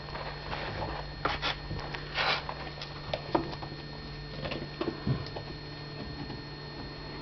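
Kitten at play on a cat play structure with a ball: scattered light taps, knocks and short scratchy rustles at irregular times, over a steady low hum.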